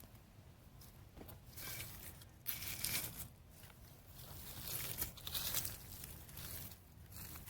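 Faint, irregular rustling and crunching of soil and leafy ginger stalks as freshly dug ginger is handled by hand.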